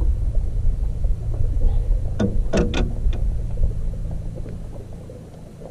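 Gusty wind buffeting the microphone, a heavy uneven low rumble that eases off near the end. A few short sharp sounds come about two to three seconds in.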